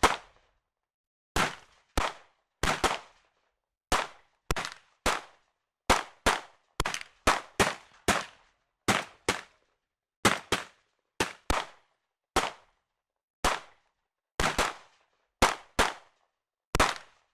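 Gunshot sound effects: single sharp cracks fired one after another at irregular intervals, sometimes two close together, each with a short ringing tail and dead silence between shots.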